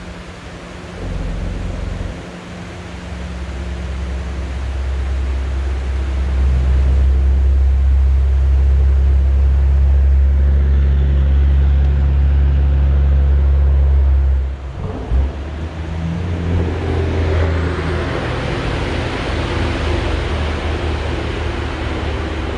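A low, steady engine-like hum that swells over the first few seconds and cuts off sharply about fourteen seconds in, followed by a steady rushing noise.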